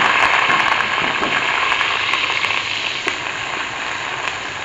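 Sliced onions sizzling steadily in hot ghee in a metal pot as they are stirred with a spatula, easing a little in the second half, with a couple of light taps of the spatula about three and four seconds in.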